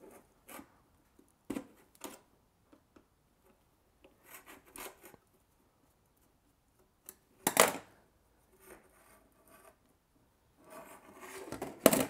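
Screwdriver working the screw out of the toolless chain-adjuster part on a Stihl MS180C guide bar: small metal scrapes and clicks, with a louder sharp metal click about seven and a half seconds in and another near the end.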